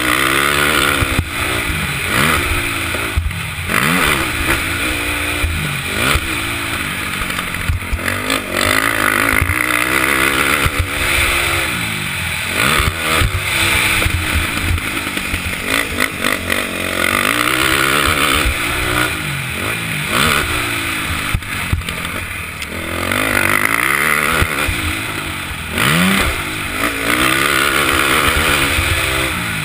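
KTM 450SX quad's single-cylinder four-stroke engine under hard riding, revving up and easing off over and over, its pitch rising and falling with each burst of throttle and gear change.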